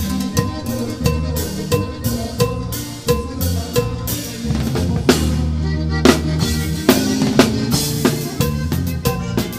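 Drum kit played live with a band, heard close from the drummer's seat: quick, steady snare, kick drum and cymbal hits, with a few louder strikes around the middle, over the band's bass line.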